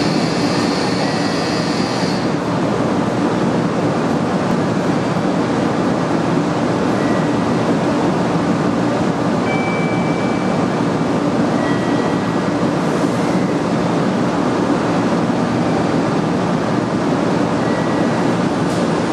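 Steady rushing hum of a JR West 500 series Shinkansen standing at the platform with its onboard equipment running, with a few faint short high tones now and then.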